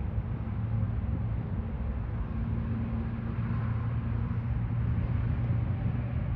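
Steady low hum of an idling engine, with an even background hiss.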